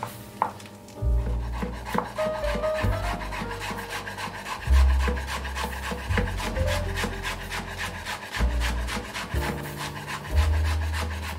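Chef's knife chopping fresh parsley on a wooden cutting board: a fast, steady run of short knocks as the blade rocks through the leaves onto the wood. Background music with a bass line plays underneath.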